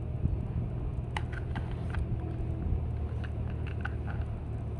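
Light plastic clicks and taps from handling a plastic aerosol spray can trigger-grip holder, in a few small clusters, over a steady low rumble.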